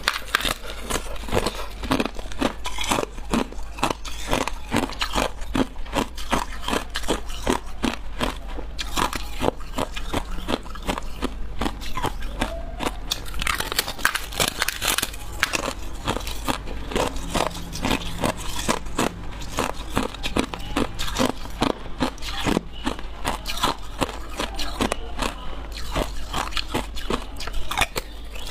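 Hard ice being bitten and crunched between the teeth: a fast, uneven run of sharp cracks and crunches.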